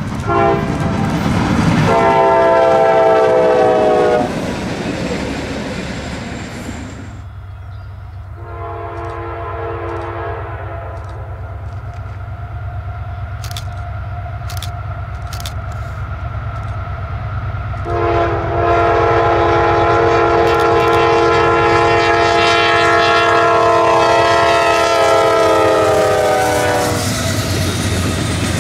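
Diesel locomotive's multi-chime air horn sounding a series of blasts: a short toot, a strong blast of about three seconds, a weaker one, then one long blast of about nine seconds. Underneath runs the steady low rumble of the passing train.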